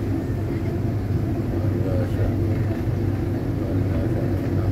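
Steady low drone of a passenger ferry's engines under way, heard inside the seating cabin.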